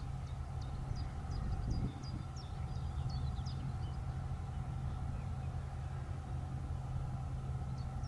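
Outdoor background: a steady low rumble with a faint hum, and short high chirps repeating about two to three times a second that stop about three seconds in.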